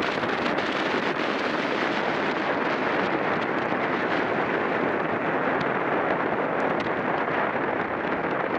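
Steady rush of wind over the microphone of a camera riding along at racing speed on a bicycle, with faint scattered ticks.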